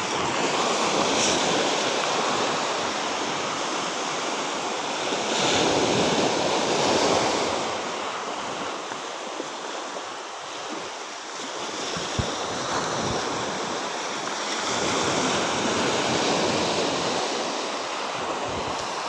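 Sea waves washing on the shore: a steady rushing that swells and eases over several seconds.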